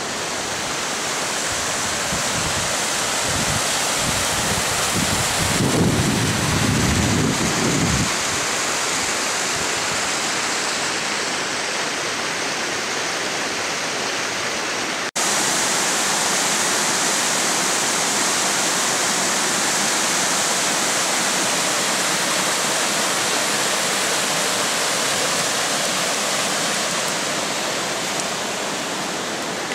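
Steady rush of a fast-flowing mountain creek. Wind buffets the microphone in the first several seconds, and the sound drops out for an instant about halfway.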